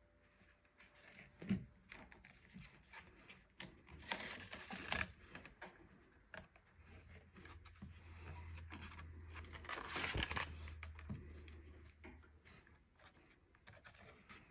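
Faint rustling and scraping of basketry reed being woven between the spokes and pulled tight, with louder swishing pulls about four and ten seconds in.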